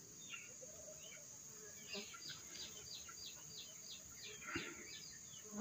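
Faint rural ambience: a steady high insect drone under a bird calling a quick run of about a dozen short chirps, three or four a second, starting about two seconds in. A single low knock near the end.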